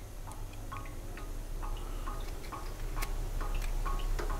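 Pot of water on the stove: irregular small ticks and plinks, a few a second, over a low steady hum that grows slightly louder.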